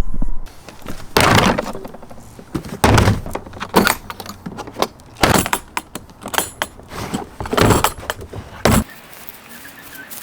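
Rotten wooden garden bench being broken apart: a string of irregular cracks, knocks and rattles, quieter in the last second.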